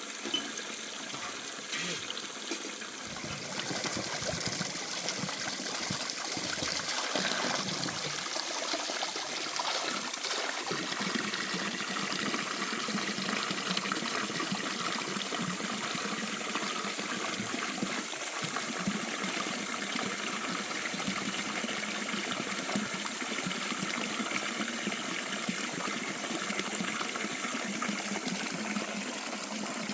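Running water flowing steadily, like a small stream.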